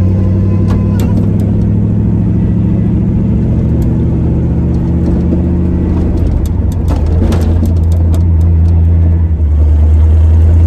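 A Chevrolet Camaro running on the road, heard from inside the cabin: the steady drone of its engine and drivetrain, with the engine note changing about six seconds in. A run of sharp clicks and rattles follows shortly after.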